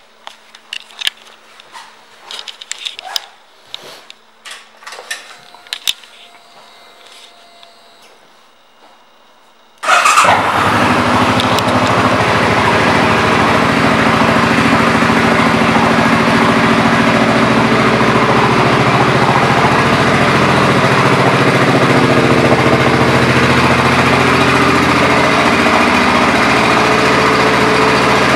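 Scattered light clicks and knocks, then about ten seconds in the 2006 Suzuki Boulevard C50's 805 cc V-twin engine starts suddenly and runs at a steady idle.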